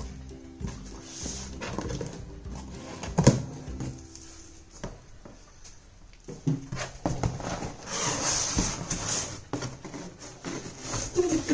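Cardboard shipping carton being opened and handled: flaps pulled open with rustling and light knocks, one sharp knock about three seconds in, and a longer cardboard scraping rustle around eight to nine seconds in as the box inside is gripped and shifted.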